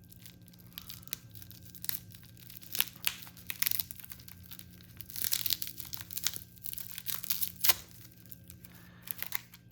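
Packing tape tearing and bubble wrap crinkling as a utility blade cuts through them, in irregular crackles and rustles, the sharpest a few seconds in and near the end. A faint steady low hum runs underneath.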